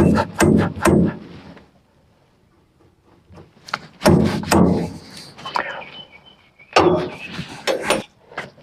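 Metal clanks and knocks from hand work on a band sawmill's blade-guide assembly: a quick run of sharp strokes with some ringing, a pause, then two more bouts of clatter.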